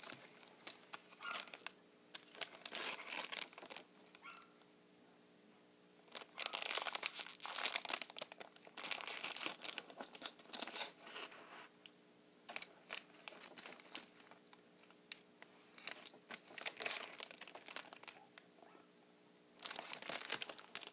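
Plastic packaging crinkling as it is handled, in irregular bursts with a couple of short pauses.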